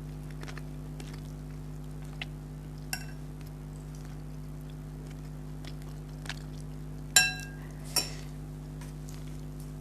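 Eating utensils clinking against a dish: a few sharp, ringing clinks, the loudest about seven seconds in and another a second later, over a steady low hum.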